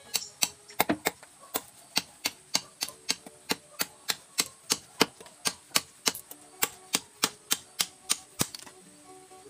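Long knife blade chopping at a carabao-horn slingshot frame held on a wooden stump: sharp, even clicks about three a second, stopping about a second before the end.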